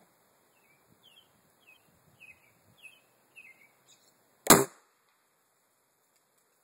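A small bird chirping short repeated calls, about two a second, then a single sharp rifle shot about four and a half seconds in.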